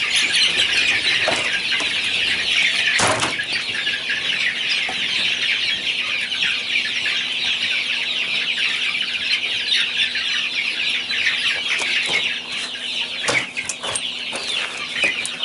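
A crowded pen of young meat chickens peeping and cheeping continuously as the flock crowds onto a tray of sprouted milo. A single knock comes about three seconds in, with a few lighter clicks near the end.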